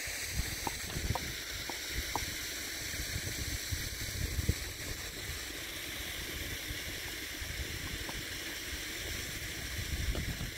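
Shallow stream running steadily, with wind buffeting the microphone and a few light clicks of stones underfoot.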